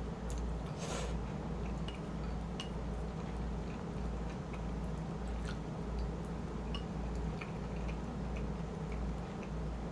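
Close-up chewing of shrimp chili over rice: a steady chewing rhythm with many small mouth clicks, and one brief sharper crackle about a second in.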